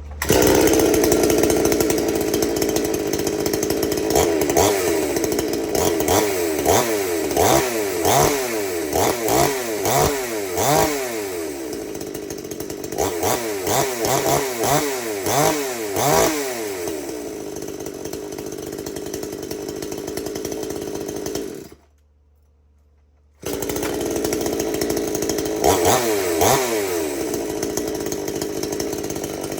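Husqvarna 240 two-stroke chainsaw, already warm, firing up on one pull and running, its throttle blipped again and again in quick revs between stretches of steady running. The sound breaks off for about two seconds past the middle, then the saw is running and revving again.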